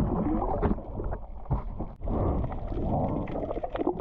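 Muffled water sloshing and gurgling picked up through an action camera's waterproof housing at and just below the sea surface, with scattered small clicks and a short break about halfway through.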